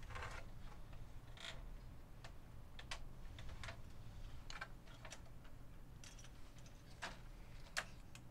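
Faint, irregular small clicks and taps, roughly one a second, from plastic parts and cable connectors being handled inside a Sony EV-S9000E Hi8 video recorder as its cables are fitted.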